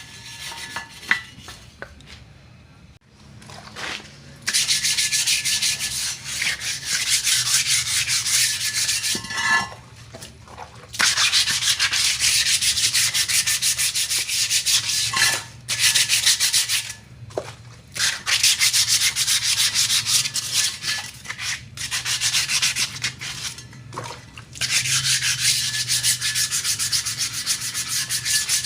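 Abrasive rubbing on a motorcycle wheel rim, as in hand sanding the old paint off before repainting. It comes in long runs of quick strokes lasting several seconds, with short pauses between them.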